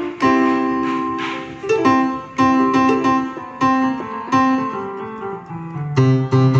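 Keyboard music with a piano-like sound: a melody of separately struck notes, with a low bass note coming in near the end.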